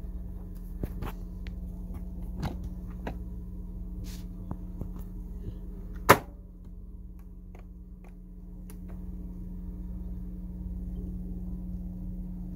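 Technics SL-10 linear-tracking turntable being handled while its platter spins: scattered light clicks and one sharp click about six seconds in as a hand works the lid, over a steady low hum.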